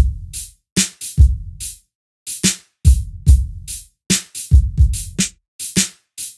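Sparse drum-machine beat: deep kick-drum hits and bright snare and hi-hat strikes, separated by short silences.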